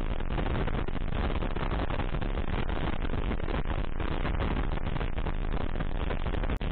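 Kawasaki KLR 685 single-cylinder dual-sport motorcycle running on the move, buried in dense, steady wind rush on the microphone. The sound cuts out for an instant near the end.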